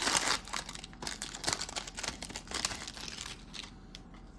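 Cellophane wrapper of a trading card pack crinkling as it is torn open by hand, loudest at the start and dying away about three and a half seconds in.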